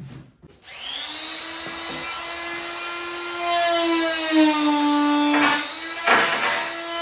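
Power drill with a step drill bit spinning up and cutting into a carbon fibre hood. The motor whine rises as it starts, then drops a little in pitch and gets louder as the bit bites under load, with two short scraping bursts near the end.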